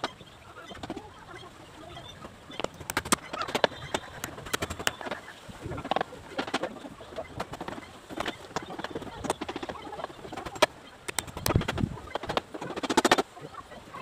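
Irregular sharp knocks and clatters of hand work on lintel shuttering: wooden props, planks and bricks being handled and struck.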